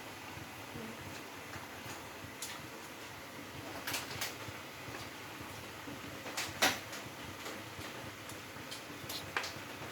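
Scattered light clicks and knocks, a few at a time, over a faint steady hiss.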